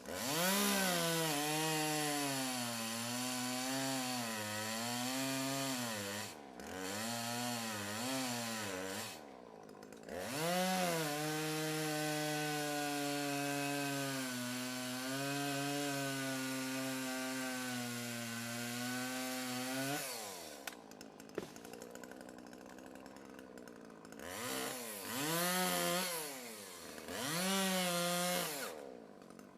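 Chainsaw cutting trees, its engine revving up into the cut and wavering under load, with short drops in between. A long steady cut runs from about ten to twenty seconds in. The saw then falls back to idle before two more brief revs near the end.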